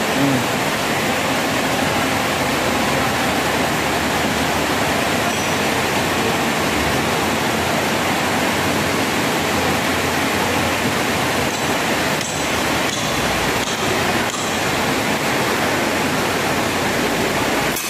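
Heavy rain falling steadily, a dense even hiss with no let-up.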